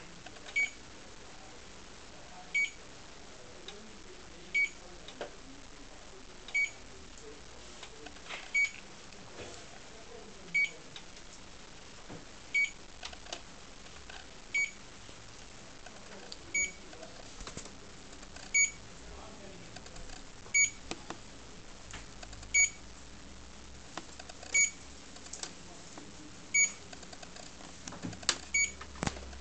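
SmartWitness SVC100GPS dash camera beeping: a short, high single beep every two seconds, evenly spaced, about fifteen in all.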